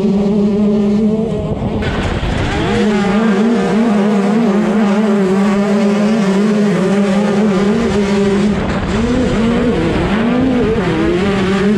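125cc two-stroke motocross bike engines at race speed, heard from on board: a high engine note that wavers up and down with throttle and gear changes, with other bikes' engines close by near the end. A steadier droning engine note for about the first two seconds before the sound changes.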